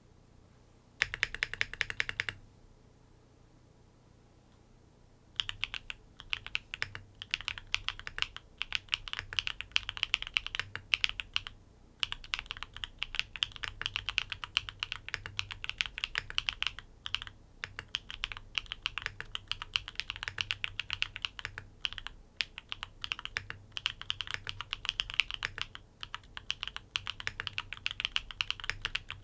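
Typing on a NEO80 mechanical keyboard with tactile switches, mounted on dumbbell gaskets. A short dense burst of keystrokes comes about a second in, then a pause of a few seconds, then steady, fast, continuous typing.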